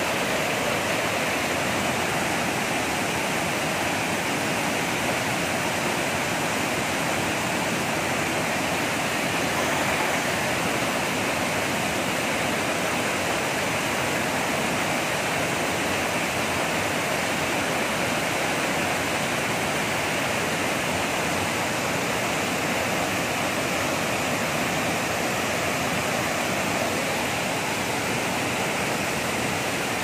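Waterfall pouring down onto rocks with the stream rushing over the boulders below: a steady, even rush of water.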